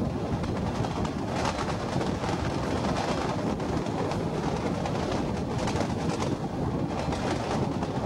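CTA 6000-series rapid transit car running along the track, heard under heavy wind buffeting on a microphone held out of its side window. A steady rushing noise with brief louder surges.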